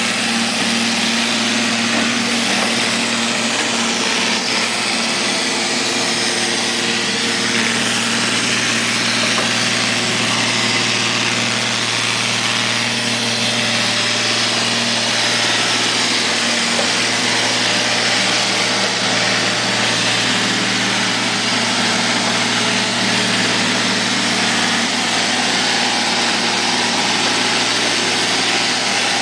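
Neato Robotics robot vacuum cleaner running mid-clean: a steady motor whir with a low hum underneath.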